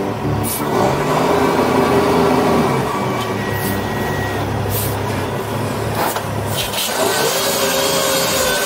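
Diesel engine of a Kenworth C500 bed truck running under load at low speed, its pitch rising and falling several times as the throttle is worked.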